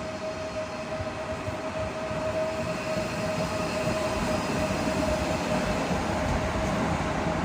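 Train running on the track at a station, its rumble growing gradually louder, with a steady whine held above it.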